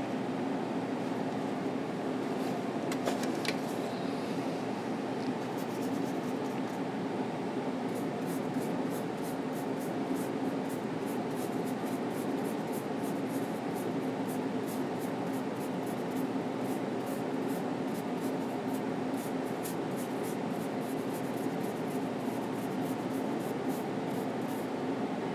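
Steady low room hum, like a fan or air-conditioning unit, with one strong low tone. From about five seconds in, faint quick ticks run over it several times a second.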